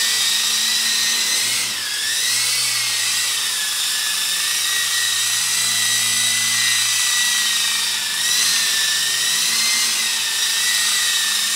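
Small indoor RC helicopter's electric motor and rotor whining steadily in flight. The high pitch wavers up and down with throttle changes, dipping briefly about two seconds in and again near eight seconds.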